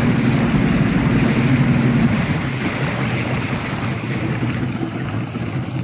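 Yamaha V6 150 Saltwater Series II two-stroke outboard in neutral, its engine note fading down about two seconds in, over the rush of water along the hull as the boat coasts off the plane.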